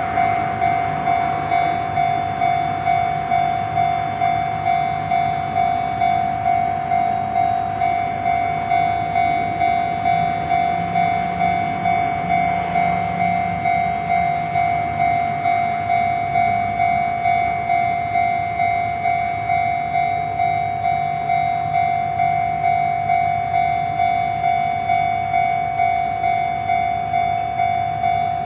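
Japanese railway level-crossing warning alarm sounding, a single electronic ding repeating evenly about one and a half times a second. A low rumble swells briefly about twelve seconds in.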